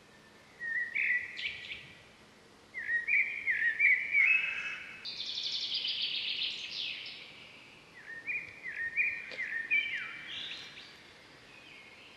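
Birds singing: phrases of quick chirping notes that step up and down in pitch, with short pauses between them.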